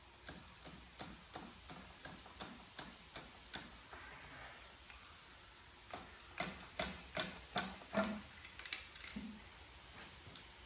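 Ratchet wrench clicking through its back-strokes as a bolt on the Steyr CVT front axle's differential housing is undone: about three clicks a second, a pause of a couple of seconds midway, and the later clicks louder.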